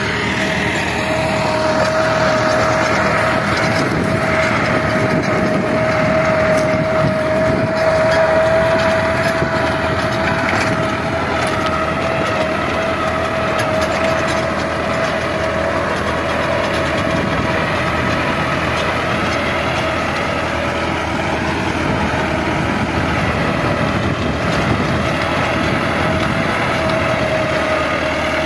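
Massey Ferguson 385 tractor's diesel engine running steadily under load while it drives a rotavator (rotary tiller) churning through the soil, with a steady whine above the engine noise.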